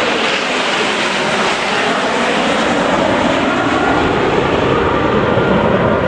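Jet noise from a formation of ten Aermacchi MB-339 jet trainers flying past, their Rolls-Royce Viper turbojets running steadily. The sound grows deeper in the second half.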